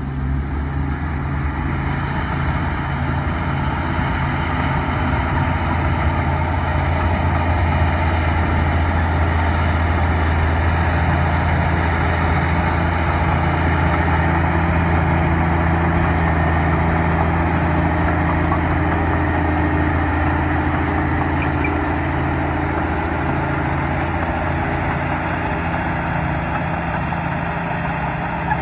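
Bulldozer's diesel engine running steadily at working revs, with a constant low engine note and no breaks.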